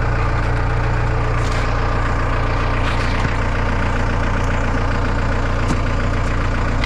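Case 686G telehandler's diesel engine idling steadily.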